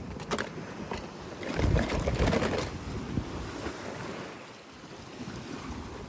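Sea surf washing against rocks, with wind on the microphone making a heavier low rumble about two seconds in.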